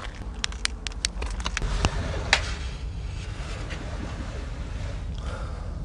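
Footsteps and handling knocks of a walking body-worn camera: a quick run of sharp clicks and taps for about two and a half seconds, then a steady low rumble on the microphone.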